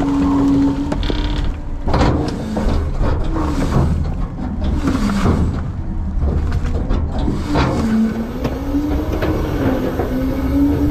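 Front-load garbage truck's packer compacting trash in the hopper. A low engine drone runs under a whine that dips and rises in pitch, with repeated cracking and creaking of trash being crushed.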